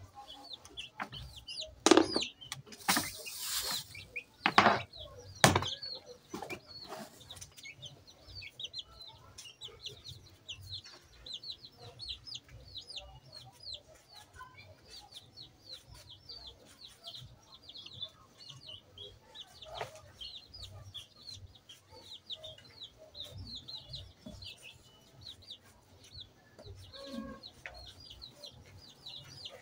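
Chickens clucking and peeping in a quick, continuous run of short high chirps. A few loud knocks come about two to six seconds in.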